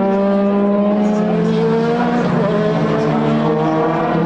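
Classic DTM touring-car engines running hard at race speed. The engine note holds, sags a little and shifts pitch about halfway through, then steadies again.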